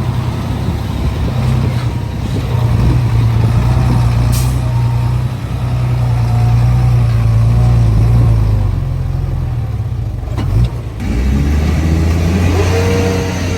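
Heavy diesel engine running steadily, with a short hiss about four seconds in. Near the end the engine note changes and rises.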